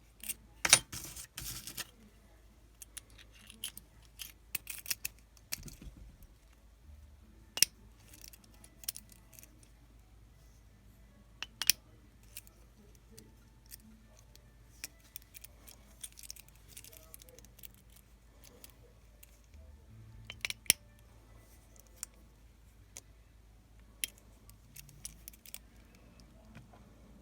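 Scattered sharp metal clicks and small rattles at irregular intervals from a Master Lock adjustable-shackle padlock and a hand-cut key being handled and worked, with a few louder snaps among them.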